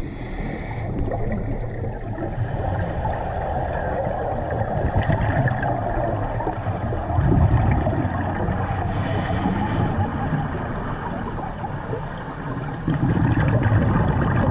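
Muffled underwater noise picked up by a camera in a dive housing: a steady low rumble that swells a few times.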